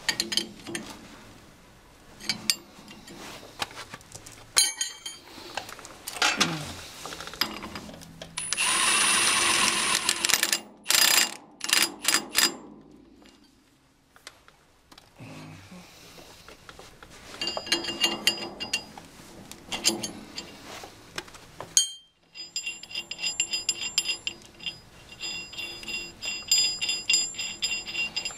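Hand ratchet clicking and metal clinks of wrench and socket as bolts are run in on a tractor wheel hub. A loud hiss lasting about two seconds comes roughly a third of the way through, and near the end the ratchet clicks quickly and steadily.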